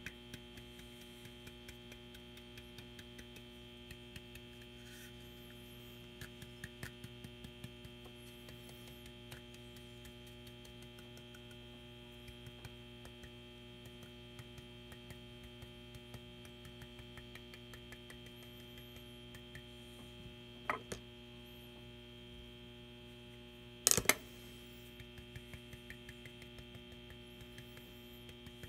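Steady electrical hum with faint, rapid light taps of a stiff brush stippling texture onto a wooden decoy. Two louder knocks come a few seconds apart late on.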